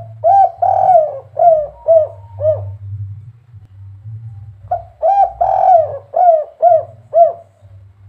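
Spotted dove (derkuku) cooing, the 'kuk 3' song type: two phrases of about six short arched coo notes each, the second phrase starting about halfway through.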